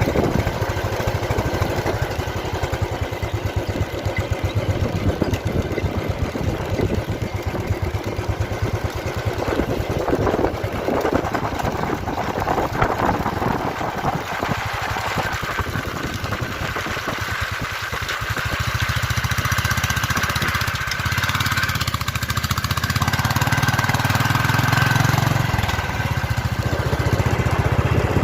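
Motorcycle engine running steadily while riding, with a rapid even firing pulse under road noise.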